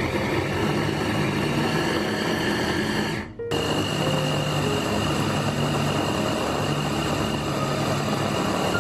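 SilverCrest electric mini chopper's motor running, its blade chopping chunks of chicken, carrot and onion in the glass bowl; it stops for a moment about three seconds in and then starts again.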